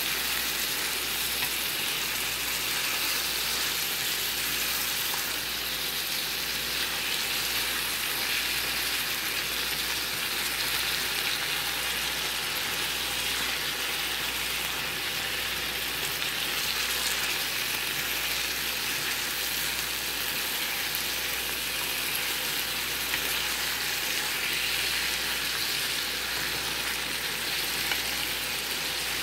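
Sliced bitter melon, onions and tomatoes frying in oil in a pan: a steady sizzling hiss, stirred now and then with a wooden spatula.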